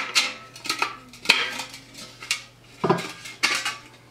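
Irregular clanks and scrapes of a galvanized sheet-metal filter housing with a metal mesh insert, handled and turned over on a wooden table while a lamp socket is threaded through a hole in it.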